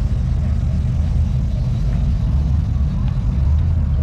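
Engine of a 1930s Ford pickup hot rod running at low speed as it rolls slowly past, a deep steady exhaust rumble.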